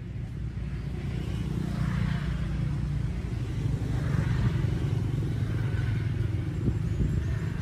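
A motor engine running with a steady low drone, growing a little louder over the first two seconds and then holding.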